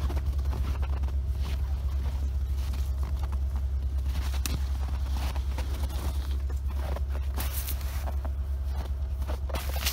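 Snowmobile engine idling with a steady low rumble, with a few scattered crunches of footsteps in the snow.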